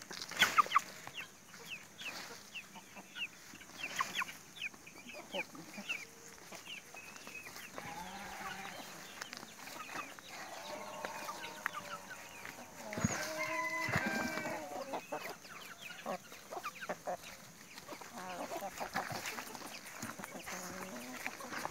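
Domestic chickens clucking and calling, with a louder, longer call about two-thirds of the way through.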